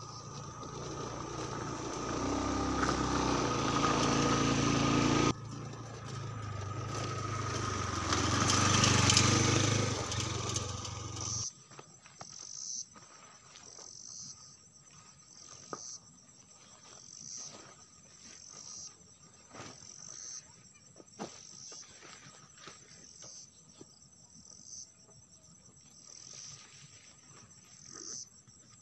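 A loud, low rumbling drone that swells for about eleven seconds and then cuts off abruptly, after which crickets chirp steadily with scattered faint clicks.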